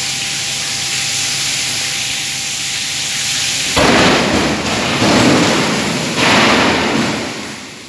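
Water pouring and splashing off a row of ice-block cans as it is raised out of the tank, with a faint steady hum. About four seconds in comes a sudden louder rush as the cans are tipped and ice blocks slide out onto the steel table with a gush of water, with another surge about two seconds later before it eases off near the end.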